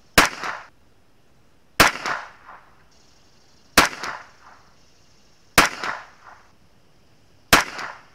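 Five .22LR rifle shots from a CZ 457 bolt-action rifle, spaced about two seconds apart, each a sharp crack with a short trailing echo.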